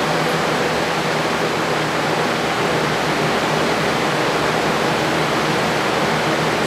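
Tornado simulator's electric fans running at their highest speed setting, a loud, steady rushing noise of moving air.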